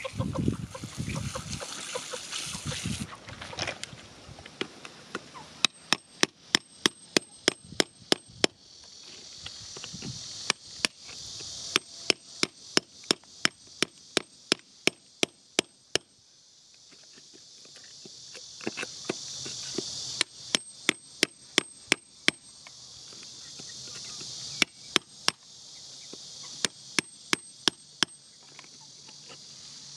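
A metal digging tool picking at hard, gravelly soil: sharp strikes about three a second, in runs of a few seconds broken by short pauses. For the first few seconds dirt is rubbed and brushed by hand instead. Insects shrill steadily underneath, swelling and fading.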